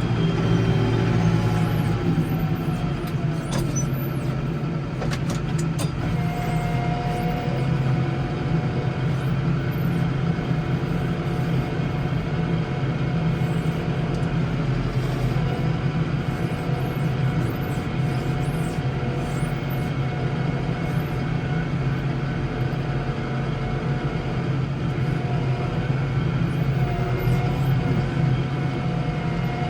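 Case 115U garden tractor engine running steadily under load, a constant drone that holds the same pitch throughout.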